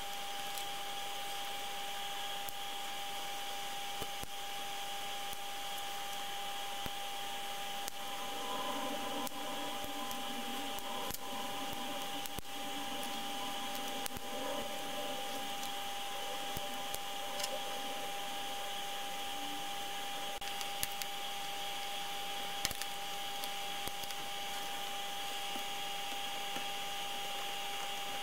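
Faint clicks and scratches of small plastic parts of a miniature CRT viewfinder being handled and pried apart with a small screwdriver, over a steady hum and hiss with a thin steady whine. A muffled, lower sound comes in about eight seconds in and fades out a few seconds before the middle.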